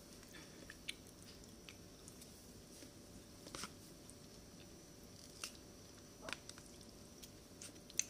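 Quiet eating sounds: a plastic spoon and fork click and scrape now and then against a plastic food container, with soft chewing.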